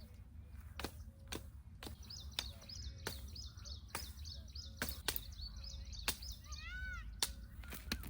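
Small forest birds chirping rapidly and repeatedly, with a short call of a few arched notes about seven seconds in. About a dozen irregular sharp cracks sound over a steady low rumble.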